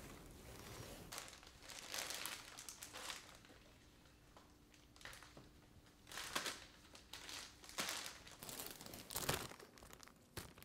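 Thin clear plastic bags crinkling faintly as scallions and vegetable pieces are dropped into them, in scattered short rustles with a brief pause partway through.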